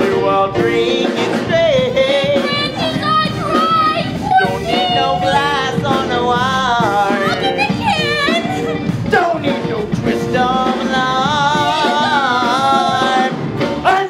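Musical-theatre song: a solo voice singing long wavering notes over backing music.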